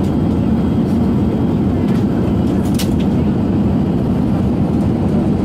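Steady in-flight cabin noise of an Airbus A380-842, heard from a seat beside the wing: an even, low rush of airflow and Rolls-Royce Trent 900 engine noise. A light click sounds about three seconds in.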